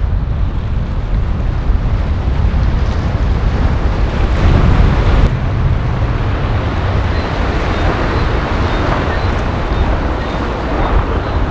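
Wind buffeting the microphone, with a strong gust about four seconds in that cuts off suddenly, over the steady noise of boat engines and surf.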